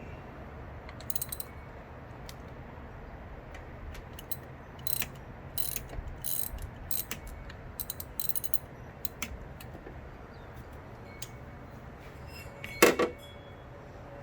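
Hand ratchet wrench clicking in short bursts, with a louder metallic clank near the end.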